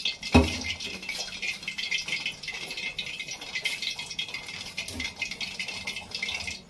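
A steel spoon clinking and scraping rapidly against the inside of a steel container as it stirs and scoops thick curd. There is one dull thump about a third of a second in.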